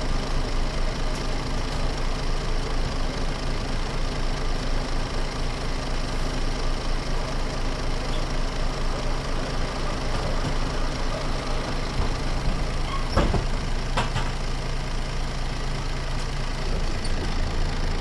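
MAN Lion's City NL 283 city bus's diesel engine idling steadily at an unchanging pitch. Two short sharp knocks come a little after the middle.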